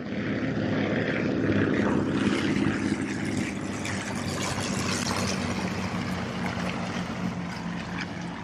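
Propeller airplane engine droning steadily, swelling over the first couple of seconds and slowly growing fainter toward the end.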